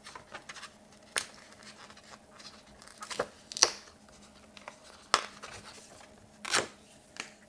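Perforated edge tabs being torn by hand off a Canon Selphy photo print: a few short, sharp paper snaps and rips with light crinkling between them, the loudest about three and a half seconds in.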